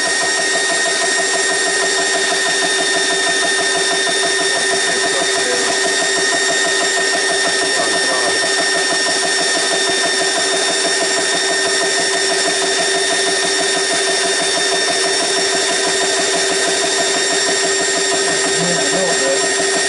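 GX CS3 portable high-pressure air compressor running steadily and noisily, pumping air into an empty tank toward its 3,000 PSI auto shut-off, a constant hum under its mechanical noise.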